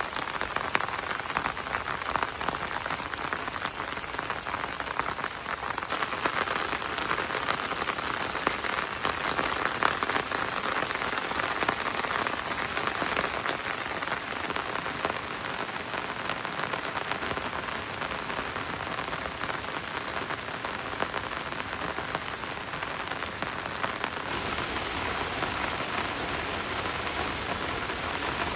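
Steady rain falling, a dense patter of drops with no engine or voices; its tone shifts abruptly a few times, as at cuts between shots.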